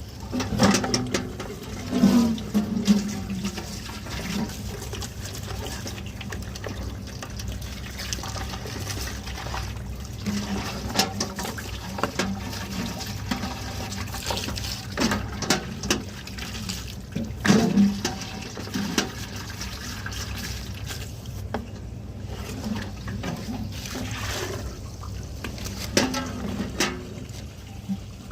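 Water running and splashing as vacuum cleaner parts are washed, with irregular knocks and splashes scattered through.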